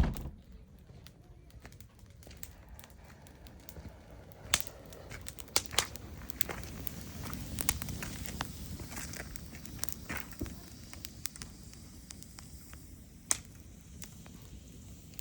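Wood fire crackling in a garden fireplace: scattered sharp pops over a low, steady rustle.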